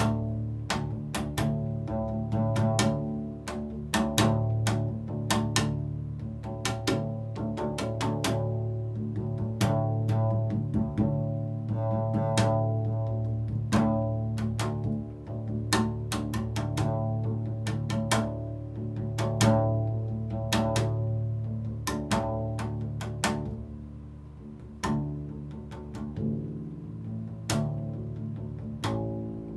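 Double bass played by striking its strings with a wooden mallet, in an improvised, irregular run of sharp taps. Each tap rings on in pitched tones over a steady low note, and the playing grows softer for a few seconds about three quarters of the way through.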